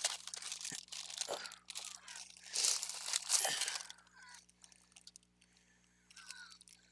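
Plastic bag and craft scraps rustling and crinkling as supplies are rummaged through by hand, loudest about three seconds in, then dying down to light rustles and a few small clicks.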